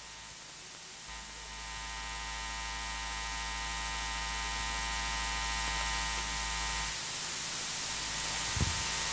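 Steady electrical buzz and hiss from a PA sound system, the hiss slowly growing louder. A deeper low hum comes in about a second in and drops out about two seconds before the end, and a small knock comes near the end.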